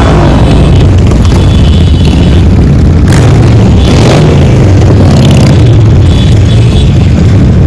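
A procession of cruiser motorcycles and scooters riding past one after another, engines running at low speed, with louder passes about three, four and five seconds in as bikes go by close.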